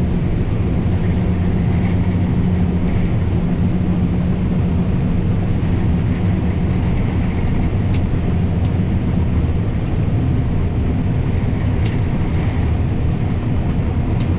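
John Deere S660 combine running steadily while harvesting soybeans, a constant low machine drone with a couple of faint ticks.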